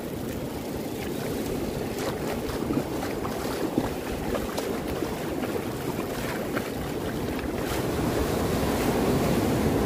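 Sea surf breaking and washing up a sandy beach: a steady rushing wash that swells a little louder near the end.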